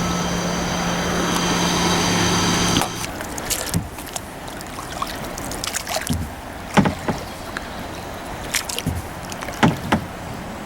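Kayak paddling: scattered splashes, drips and knocks of a paddle against the kayak over a faint wash of moving water. For the first three seconds a louder steady hum with a thin high whine sits over it, then cuts off suddenly.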